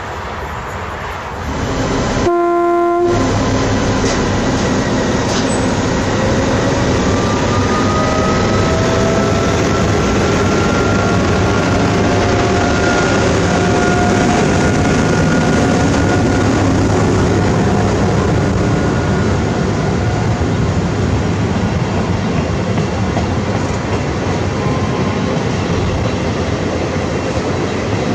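A train horn sounds one short blast about two seconds in. Then a train passes with a steady heavy rumble and wheel clatter, and a faint whine rises slowly in pitch through the middle.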